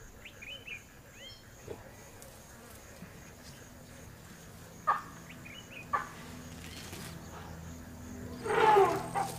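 Wild animals calling: faint short chirps and calls, then a loud, harsh animal call lasting under a second about eight and a half seconds in. A low steady hum runs underneath from about three seconds in.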